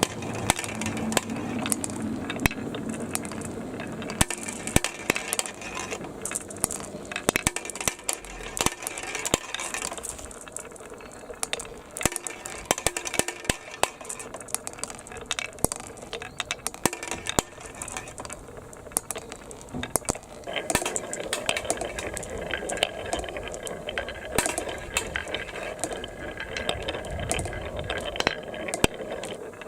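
Many small balls rolling and clicking along a plastic marble-run track with water running through it: a continuous rapid clatter of light clicks.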